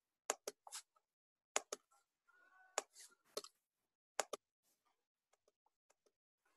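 Computer mouse clicks: a series of sharp clicks, several of them in quick pairs, over the first four and a half seconds, then only faint ticks.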